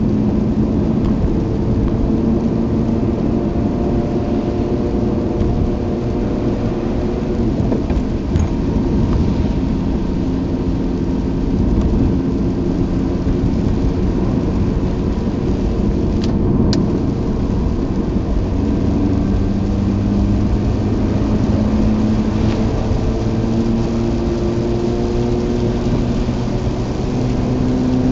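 Mazda RX-8's rotary engine running and tyres hissing on a rain-soaked road, heard inside the car's cabin. A steady low rumble of rain and road noise lies under it. The engine note climbs gently a few times as the car picks up speed.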